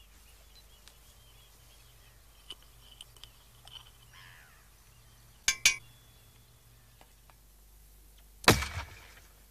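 Small metallic clinks as a teaspoon of petrol and a lager can are loaded into a firework mortar, with two sharp clinks about five and a half seconds in. About three seconds later comes a single loud bang: petrol vapour in the mortar, lit by a spark plug in its side, burns and fires the can out.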